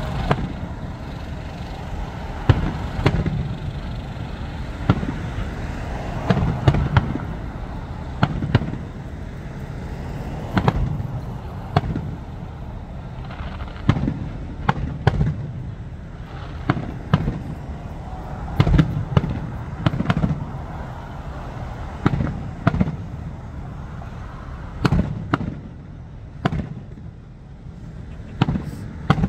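Fireworks display: aerial shells launching and bursting one after another, sharp bangs about every second over a low rumble.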